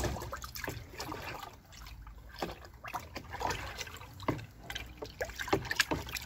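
A spoon stirring watery liquid fertilizer in a plastic bucket: the liquid sloshes and splashes in irregular strokes, a few louder near the end.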